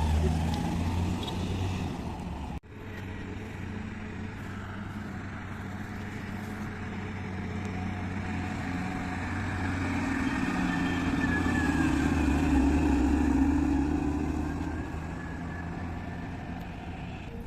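Heavy diesel engine of a JCB backhoe loader running, swelling louder for a few seconds past the middle and easing off again as it works under load. The sound drops out for an instant about two and a half seconds in.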